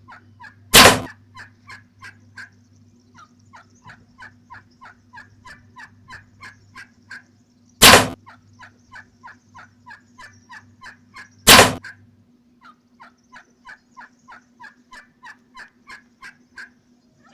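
A wild turkey gobbler gobbling loudly three times, with a long run of short, evenly spaced yelps, about three a second, filling the gaps between the gobbles.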